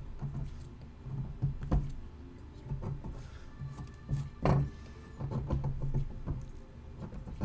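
Small steel chisel scraping and chipping at the nose of a gypsum (Ultracal 30) face cast, cleaning off small lumps: scattered scratches and clicks, the sharpest about four and a half seconds in.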